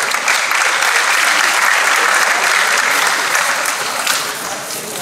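Audience applauding, swelling in the first seconds and tapering off after about four seconds.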